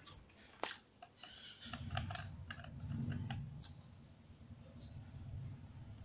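Sharp little clicks of a screwdriver working the screws of a toy RC truck's battery cover, and from about two seconds in a bird chirping four short high calls over a low rumble.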